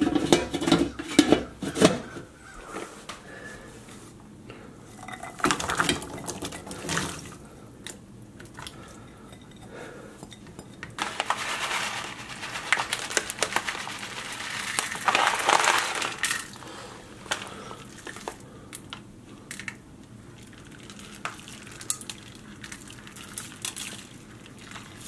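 Clatter of an enamel roasting pot and kitchen utensils as vegetables and seasonings are added to a soup, with sharp knocks near the start and again around six seconds, and a few seconds of rushing noise in the middle.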